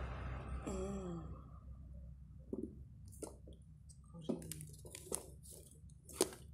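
A few scattered soft clicks and taps as a hand handles soft raw snow sausages on a metal tray, the sharpest two a little past the middle and near the end.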